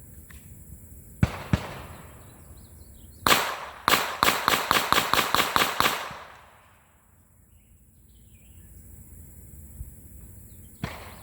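Glock 44 .22 LR pistol firing Federal 40-grain rounds: two shots about a second in, then a fast string of about a dozen shots at roughly five a second, and a single shot near the end.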